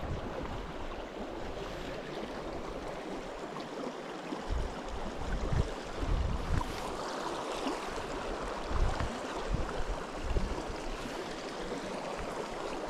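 Small, shallow mountain creek running over a gravel bed, a steady rushing babble, with a few brief low rumbles breaking through it.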